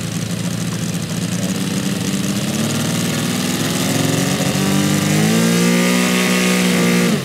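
Radial engine of a large scale RC Yakovlev Yak-55M model running on the ground. It is throttled up so its pitch climbs from about two and a half seconds in to about five seconds, holds at the higher speed, then cuts off abruptly at the end.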